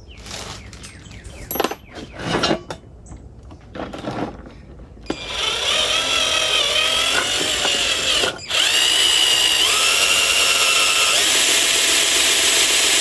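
A few light metallic clinks of tools and parts being handled, then a power drill running with a steady high whine for several seconds. It stops briefly, then runs again.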